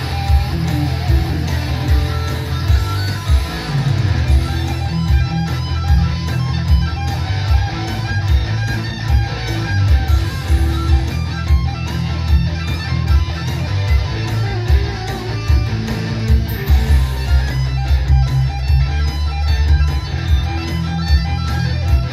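Electric guitar playing 1980s-style heavy metal, with a steady beat of regular strikes and a heavy low end underneath.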